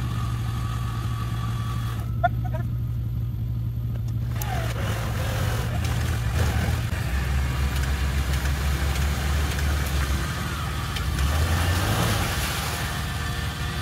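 2001 Nissan Xterra's engine running steadily, its pitch shifting a few times and rising briefly about eleven seconds in.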